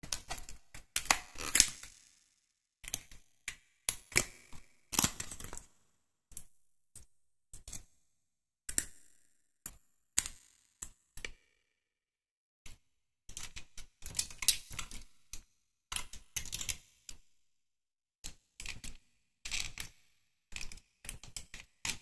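Stiff printed-board 3D puzzle pieces handled and slotted together by hand: irregular clicks, taps and scratchy crackles in short clusters with silent gaps between.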